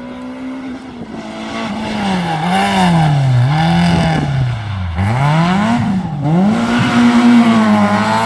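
Historic rally car's engine driven hard on a stage, growing louder as it approaches and passes. Its revs climb and drop several times, falling lowest about five seconds in before climbing again.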